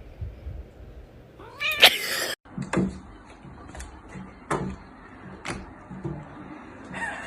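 A domestic cat gives one loud, rising yowl about two seconds in, followed by a few short, sharp cries about a second apart.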